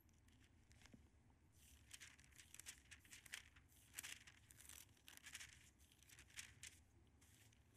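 Thin Bible pages being flipped and turned by hand: a faint run of quick, crisp paper rustles that starts about a second and a half in and dies away near the end, as he looks for a passage.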